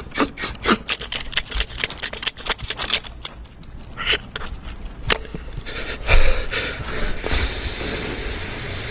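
Beatboxer's mouth sound effects: a quick run of sharp clicks and pops, two single clicks, then a long hissing, breathy sound that grows a thin high whistle near the end.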